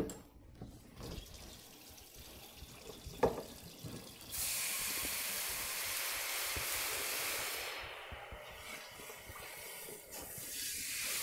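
A knock, then a kitchen sink tap turned on about four seconds in, water running steadily into the sink as the pan used for searing is rinsed out.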